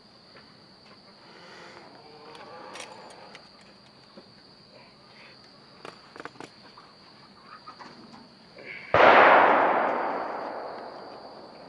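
Steel 330 conibear trap giving a sudden loud metallic clank about nine seconds in, which fades away over two to three seconds, as its spring is pulled down with tarred bank line; faint rope and metal rustles come before it, and crickets chirp steadily throughout.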